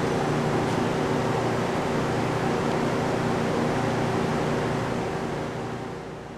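Steady mechanical hum and hiss from an idling Okuma LB9 CNC slant-bed lathe, with a few low steady tones, fading away near the end.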